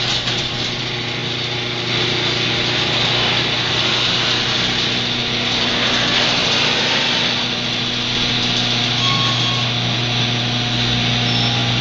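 Electric garage door opener running as it drives the door, a steady motor hum with a rasping noise over it, cutting off suddenly at the end.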